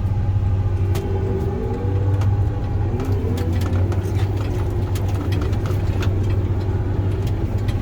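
Combine harvester's engine running under load with a steady low drone as it pulls out onto the road in 3rd range on its hydrostatic drive. Faint rising whines come twice, with scattered light clicks.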